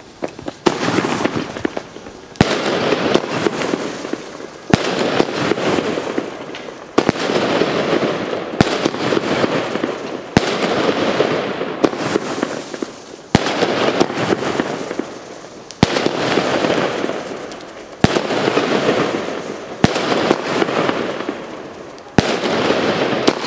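Vulcan Speed of Sound 25-shot firework cake firing about ten shots, one every two seconds or so. Each shot is a sharp bang followed by a loud hiss that fades before the next.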